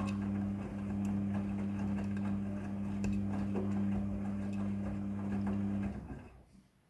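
Midea front-loading washing machine running a wash, its drum motor giving a steady hum with light ticking from the tumbling load, then winding down and stopping about six seconds in.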